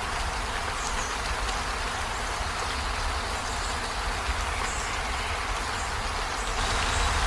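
Steady rain falling on a river: an even hiss with a low rumble beneath it.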